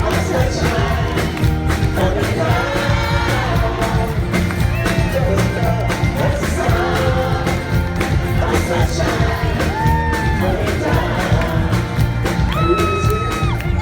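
Live band music with singing over a steady bass beat, and crowd noise underneath; a long held note near the end.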